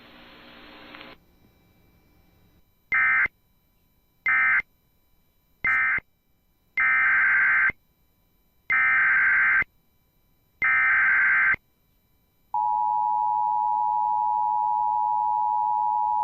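Emergency Alert System signalling. Three short bursts of warbling digital data, the end-of-message code closing one alert, are followed by three longer data bursts, the SAME header of the next alert. Then comes the steady two-tone EAS attention signal, held about four seconds, announcing that alert.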